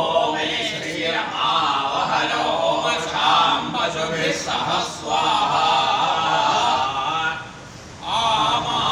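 Several men chanting Sanskrit Vedic mantras together in a steady recitation, with a brief break for breath near the end.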